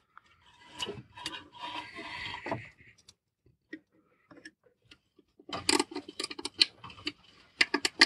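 Small plastic parts being handled and rubbed, then, past the halfway point, a quick run of sharp clicks: nylon cable ties being pulled tight through their ratchet heads to fix a camera circuit board to its plastic mount.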